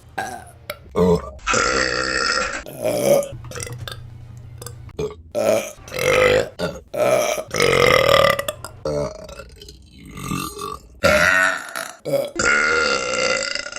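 A string of women's loud burps, about half a dozen in a row, each lasting around a second, some drawn out and croaking. They come from separate recordings spliced together, so the sound quality changes abruptly between burps.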